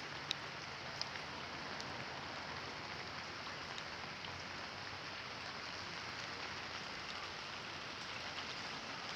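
Steady rain falling, an even hiss with the occasional sharp tap of a single drop.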